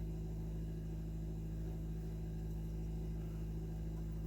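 Steady low electrical hum with a faint hiss behind it, unchanging and with no clicks or other events.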